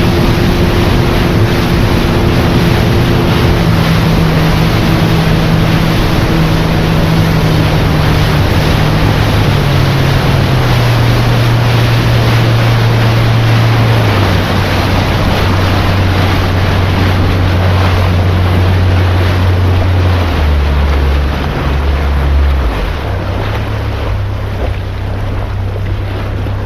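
Tour boat's motor running under way, with water rushing past the hull and wind on the microphone. The engine note drops in several steps as it is throttled back, and the whole sound eases off near the end as the boat slows.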